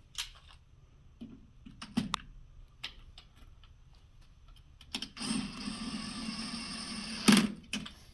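Small sharp clicks and taps of a metal nut, screw and wrench being handled and fitted into a golf-caddy frame latch, then a steady scraping sound for about two and a half seconds ending in a loud click.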